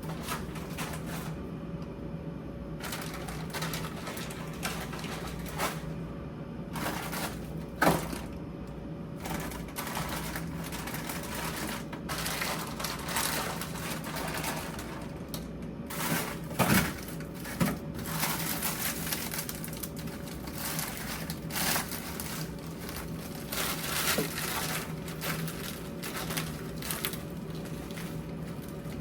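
Grocery packages and plastic wrapping rustling, with items knocking and clattering as they are handled and put away, a few louder knocks among them, over a steady low hum.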